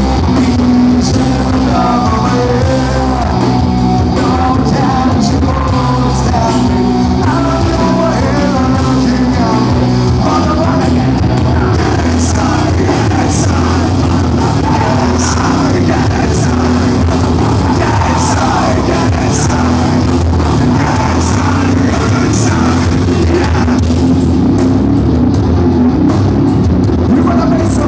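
A rock band playing live and loud, heard from the audience: a heavy full band with a male lead vocal. The singing is clearest in the first half, and cymbal crashes come about once a second in the second half.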